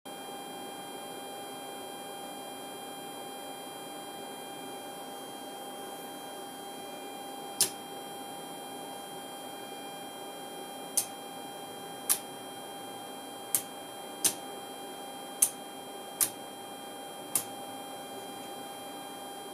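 Steady electrical hum with one clear tone from the Decca indicator running on its 400 Hz aircraft supply. From about seven and a half seconds in come eight sharp mechanical clicks at uneven gaps of roughly a second or less.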